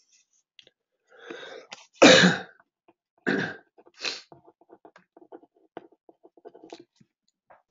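A person sneezing: a short noisy in-breath, then one loud sharp burst about two seconds in, followed by two shorter bursts. Then a run of light scattered clicks.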